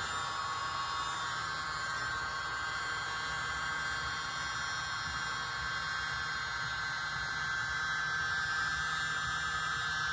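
Miniature handheld electric leaf blower running steadily: a small motor's high whine over a rush of air. It grows a little louder near the end.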